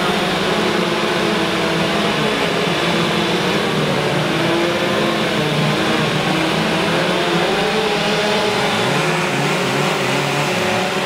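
Several two-stroke chainsaws running at once as carvers cut into logs, their engines revving up and down in overlapping pitches.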